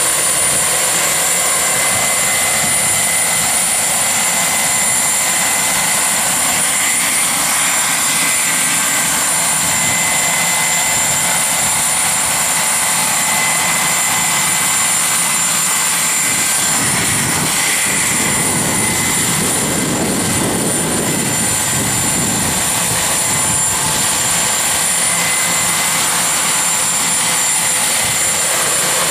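Turbine engine and rotor of a radio-controlled Mi-24D Hind scale model helicopter in flight, a steady high-pitched turbine whine over rotor noise. The rotor noise swells for a few seconds about two-thirds of the way through.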